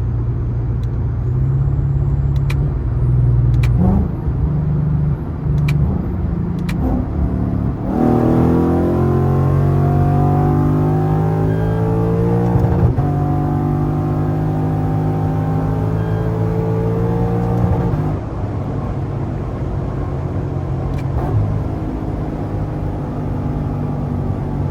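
Lexus IS F's 5.0-litre V8 engine pulling hard under acceleration: after a few seconds of steady running, its pitch climbs, drops at an upshift about 13 seconds in, climbs again through the next gear, then falls away as the throttle is lifted about 18 seconds in and the car settles to a steady cruise.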